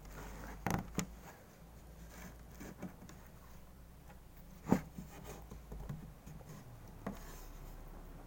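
Close-up eating and handling noises: a few sharp taps or clicks, the loudest a little past halfway, with faint rustling and scraping between them.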